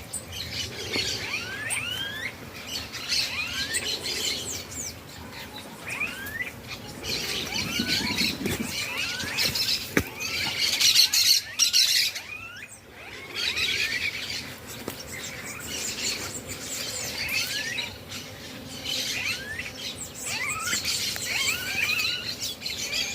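Many birds chirping and calling together: repeated short sweeping whistles over a dense, high chatter that swells louder in the middle and briefly thins out soon after.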